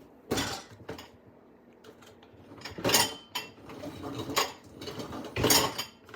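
Dishes and cutlery clattering in a loaded dishwasher as it is pushed shut, with about five sharp clinks and knocks spread through, the loudest near the middle and near the end.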